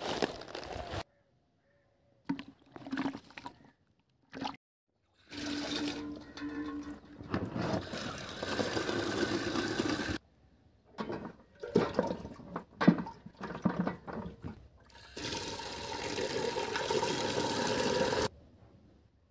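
Brief rustling of dry palm fronds, then a stream of water pouring and splashing into a pot holding fish. There are two long steady pours of several seconds each, with a stretch of irregular splashing between them.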